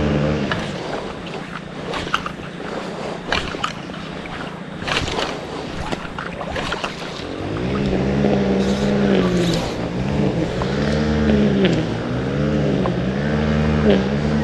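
A motor engine revving up and down over and over. It drops out for several seconds early on, leaving a hiss with scattered clicks, then comes back in repeated swells.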